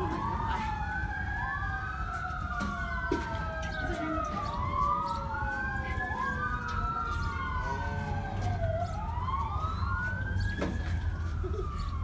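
Several sirens wailing at once, each pitch rising and falling slowly and out of step with the others, over a steady low rumble.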